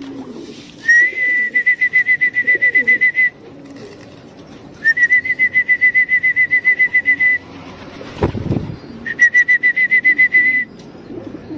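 A high, whistle-like trill repeated four times, each a rapid even run of about eight notes a second lasting one and a half to two and a half seconds, with short pauses between. A brief low rumble or thump comes about eight seconds in.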